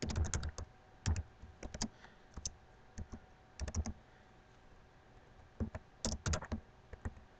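Typing on a computer keyboard: irregular runs of keystroke clicks, with a pause of about a second and a half midway.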